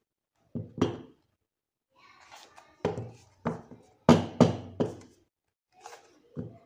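A stack of paper sheets being knocked and set down on a tabletop: a series of about seven sharp thumps, the loudest cluster near the middle, with a little paper rustle.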